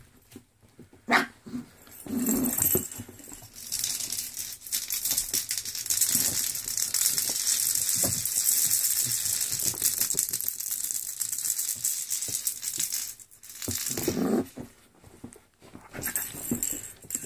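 Puppies playing with toys on a blanket: a long stretch of scuffling and rustling, with short puppy growls or yaps about two seconds in and again near fourteen seconds.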